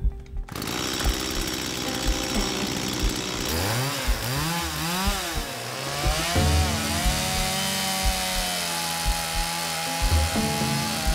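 A small engine, like a power saw's, revving up and down several times and then held at a steady high speed.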